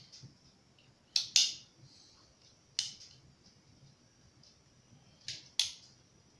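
Black-powder percussion revolver's action worked by hand with the cylinder removed: sharp metallic clicks as the hammer is cocked and let down. A quick pair of clicks about a second in, a single click near three seconds, and another pair just past five seconds.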